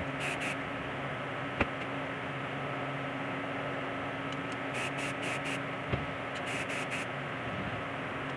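Steady hum and hiss, with a sharp click about one and a half seconds in and a dull knock near six seconds as a tube is set onto a wooden turntable stand; short high hissy bursts come in quick clusters of three or four.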